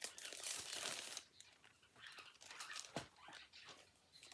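Packaging crinkling and rustling as it is handled for about a second, then quieter handling noises with a few sharp clicks.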